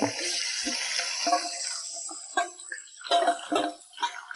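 Chopped aromatics sizzling in the hot oil left in a wok after frying shrimp, a loud hiss from the moment they go in, with a few short knocks of stirring from about two to three and a half seconds in.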